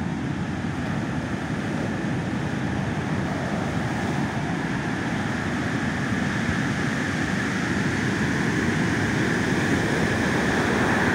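Heavy ocean surf breaking and washing up the beach: a steady rush of wave noise.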